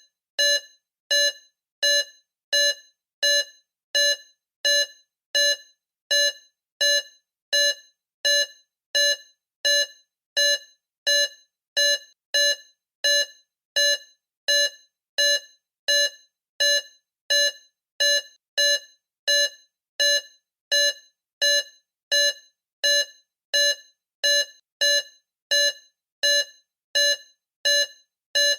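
Electronic beeper sounding short, high-pitched beeps at a steady rate of about three every two seconds, each beep starting sharply and fading quickly.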